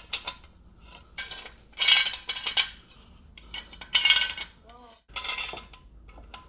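Metal clanking and clinking from a steel floor jack and jack stand being set under a car: about five separate clatters, the loudest about two and four seconds in.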